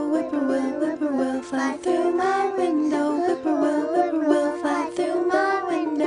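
Children singing a folk song with a plucked string instrument accompanying them.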